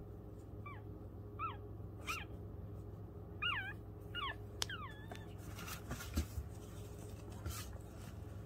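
Newborn Pomeranian puppies squeaking: about seven short, high cries, each bending downward in pitch, over the first five seconds. Then a few soft rustles.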